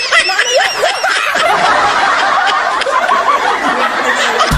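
A group of people laughing loudly together, with many overlapping high-pitched squeals and shrieks of laughter.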